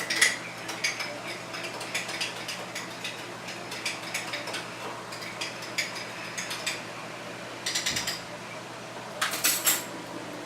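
Light clicking and scraping of kitchen utensils, with two short, quick rattling runs of clicks near the end.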